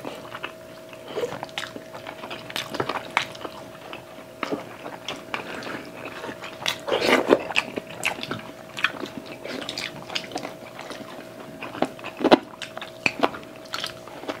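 Close-miked mukbang eating sounds: chewing, lip smacks and meat being pulled apart by hand, a continual string of short wet clicks and smacks. A faint steady hum runs underneath.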